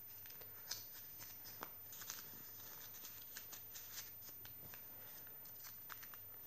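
Paper pages and card covers of a small, thick handmade junk journal being handled and flipped: soft rustling with an irregular string of light paper flaps and ticks, a few a little sharper than the rest.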